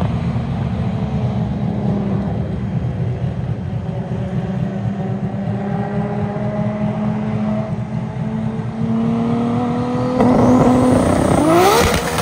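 Toyota Supra engine and exhaust running at a light, steady throttle while the car drives by, the note wavering slightly. About ten seconds in it gets louder, then revs up with a sharply rising pitch near the end.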